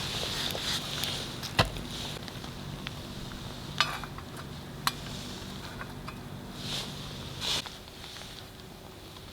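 Food-preparation handling sounds: a few sharp clicks and knocks and short rustles, over a low steady hum that stops about three-quarters of the way through.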